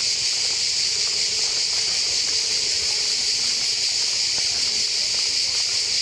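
Chorus of cicadas singing in the trees, a steady high-pitched buzz that never breaks.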